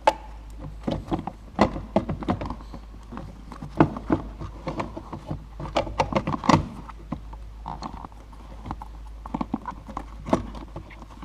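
Irregular clicks, taps and knocks of a replacement front seat belt assembly and plastic trim being handled and worked into place, a snug, fiddly fit.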